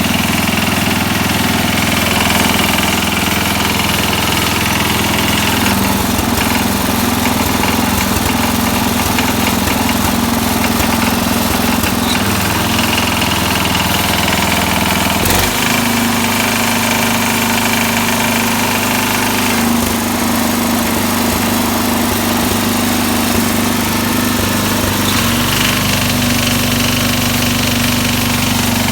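1969 SS12 Hydro garden tractor engine running with an intermittent knock that comes and goes with engine speed and with the PTO engaged. The owner thinks it may need a rebuild. The engine note shifts about halfway through.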